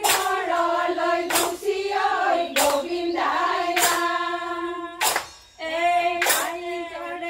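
A group of women singing a Bihu husori song together, with one loud group hand-clap about every second and a quarter, keeping the beat. The singing breaks off briefly after about five seconds, then resumes.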